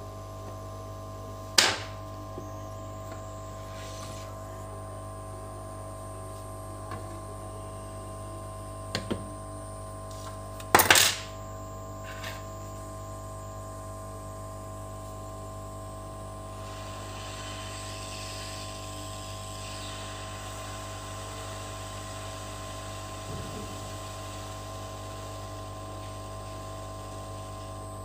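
Hot air rework gun blowing steadily over an ECM circuit board to desolder the radiator-fan driver transistor: a steady hum, with a faint hiss joining about halfway through. A few sharp clicks of tools on the board come through it, the loudest about 11 seconds in.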